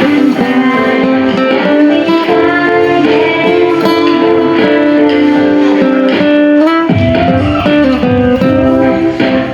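Electric guitar music, plucked and sustained notes over a chord backing, with a bass line coming in about seven seconds in.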